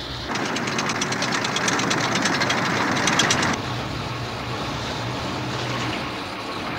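Tank engine running with a steady drone heard inside the vehicle. Just after the start comes a loud, rapid clatter lasting about three seconds, then the engine drone alone again.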